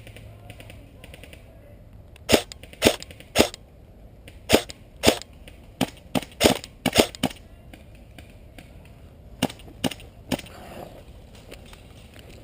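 Airsoft rifle fired in single shots, about a dozen sharp cracks in three uneven groups: three, then a quicker run of about seven, then three more near the end.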